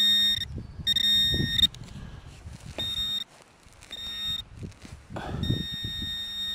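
Handheld metal-detecting pinpointer sounding a steady high buzzing tone in five on-off bursts, each lasting from about half a second to a second and a half, as it is worked through a loose clump of dug soil: it is signalling a metal target in the soil. Soil scraping and crunching under the probe runs beneath the tone.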